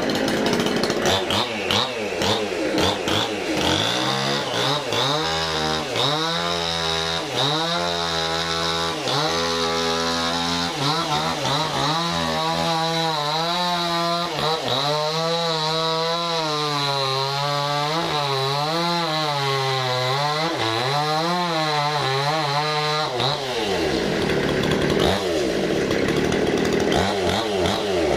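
Petrol chainsaw running and cutting into a large teak log, its engine speed rising and falling over and over as the throttle is worked and the chain bites. Near the end the sound turns rougher and less steady in pitch.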